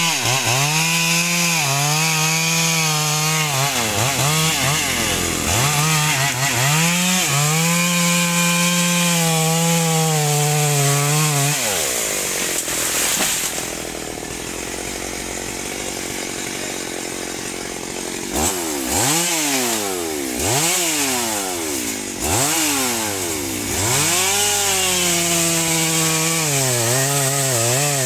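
Two-stroke chainsaw running at high revs, its note dipping and climbing again several times as the throttle is eased and opened. Just before the middle it runs lower and quieter for several seconds. It then comes back in a string of quick throttle blips and runs high and steady to the end.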